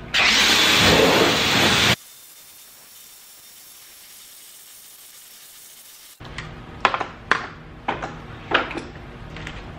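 Water jet from a hose spray gun rinsing soap off a car wheel and tyre: a loud hiss for about two seconds, then a quieter steady hiss. About six seconds in the spray stops and a few sharp knocks and handling sounds follow.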